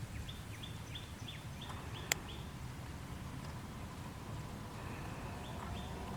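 A bird calling in a quick run of short, falling chirps, about three a second, pausing and starting again near the end, over a steady low rumble. A single sharp click about two seconds in.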